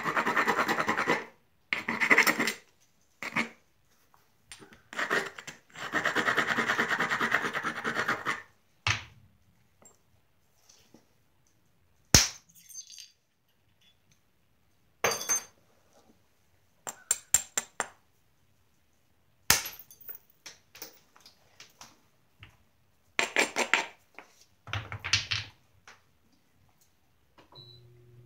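Flintknapping a Georgetown flint biface: a tool scraped back and forth along the flint's edge in several long scraping strokes, abrading the edge to prepare platforms, then sharp single clicks every few seconds as flakes are pressed off the edge. A little more edge scraping comes near the end.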